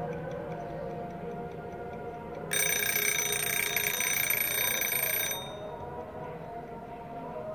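Mechanical wind-up dial timer's bell ringing for about three seconds, starting about two and a half seconds in and stopping abruptly: the timer has run down to zero.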